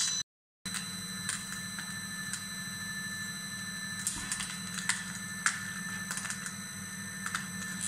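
Electric screw oil press running while cold-pressing baobab seeds: a steady motor hum with a few high, even whining tones, and scattered irregular clicks. The sound drops out briefly near the start.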